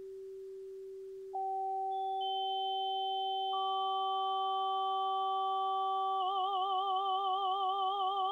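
Synthesised pure tones (sine waves) sounding as a stack: a low steady tone is joined one at a time by higher tones, building a chord. About six seconds in, all the tones start to wobble up and down in pitch together, and the stack starts to sound like a human voice singing a vowel.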